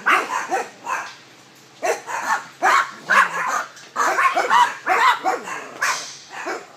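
Dogs in a rescue kennel barking, short barks one after another, with a brief lull about a second in.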